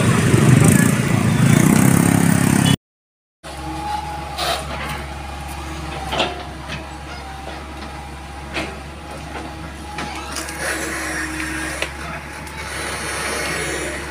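Several motor scooters passing close by, their small engines loud, then, after a brief cut to silence, a hydraulic excavator's diesel engine running steadily with a low hum, broken by a few sharp clicks and cracks.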